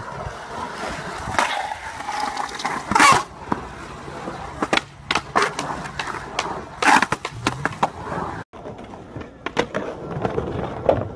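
Skateboard wheels rolling on concrete, broken by a series of sharp clacks as the board strikes the ground.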